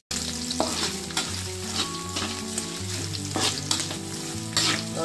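Oil sizzling in an aluminium wok as sliced Chinese sausage and chopped garlic are stir-fried, with a metal spatula scraping and tapping against the wok in quick strokes.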